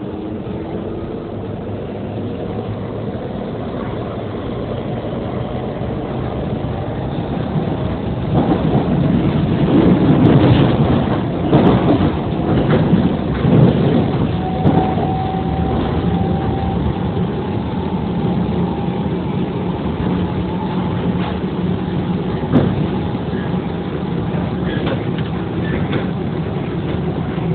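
A railway train running on the rails with a steady rumble, growing louder and clattering with knocks of the wheels over the track about a third of the way in. A thin steady whine sounds through the middle.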